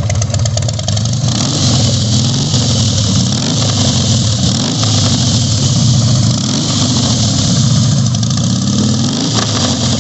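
2006 Harley-Davidson Night Train's V-twin engine running loud through exhaust pipes with the baffles taken out. It is revved up and let back down again and again from about a second in.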